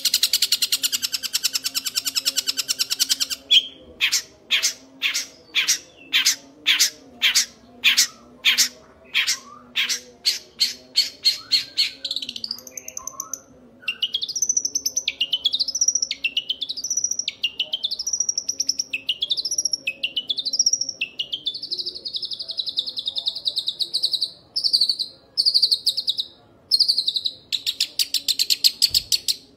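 Young long-tailed shrike giving a long, harsh chattering call: a continuous rasp at first, then a run of separate harsh notes about once a second. These give way to repeated sweeping notes and a long held rasp.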